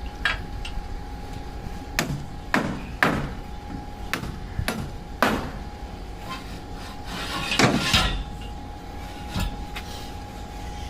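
A series of irregular, sharp knocks like hammer blows from construction work, about ten in all and unevenly spaced, with a louder cluster near the end, over a steady faint hum.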